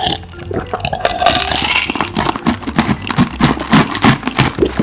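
Gulping an iced fizzy drink from a glass, with ice cubes rattling against the glass, then a run of sharp crunches and clicks as ice is chewed close to the microphone.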